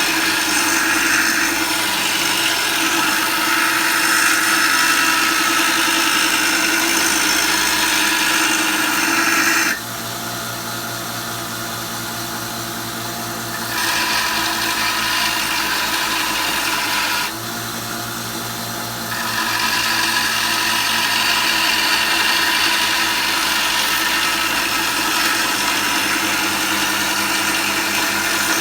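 Belt sander running with a steel draw knife blade held against the moving abrasive belt, a steady grinding hiss over the motor's hum. Twice the hiss drops away for a few seconds while the motor keeps humming, as the blade is lifted off the belt.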